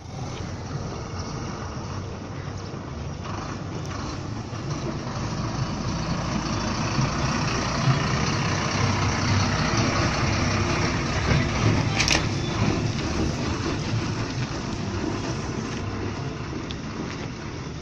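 Diesel engine of a TNSTC mofussil bus driving close past and then away through a sharp turn. It grows louder as the bus comes alongside and fades as it pulls off, with a brief hiss about twelve seconds in.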